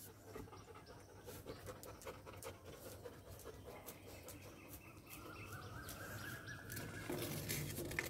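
Labrador retriever panting, faint.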